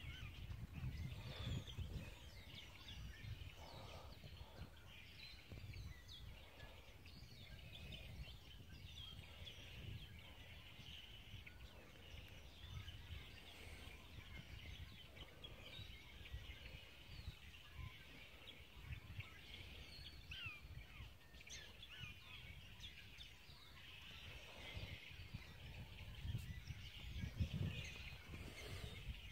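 Faint outdoor ambience: many small bird chirps and calls scattered throughout, over a low rumble.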